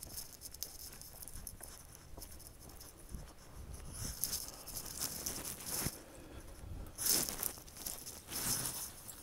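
Footsteps and rustling in dry leaves and grass, in a few short crackling bursts with faint ticks between.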